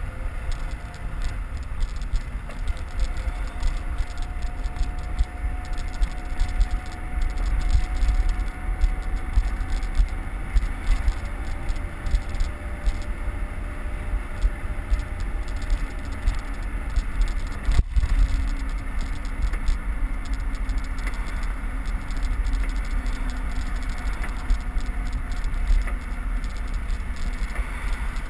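Steady wind rush and low rumble on a bicycle-mounted camera's microphone while riding at speed behind a car, with road and traffic noise. A single sharp click about two-thirds of the way through.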